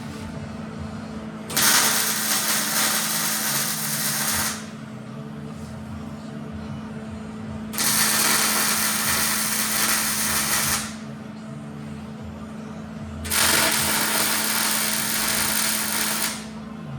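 Three loud bursts of metalworking power-tool noise, each about three seconds long, starting and stopping abruptly, over a steady low hum.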